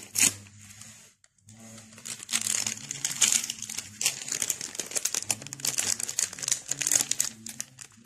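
Foil-lined coffee mix sachet crinkling densely as it is handled and torn open, after a short burst at the start and a brief pause about a second in. A faint steady low hum runs underneath.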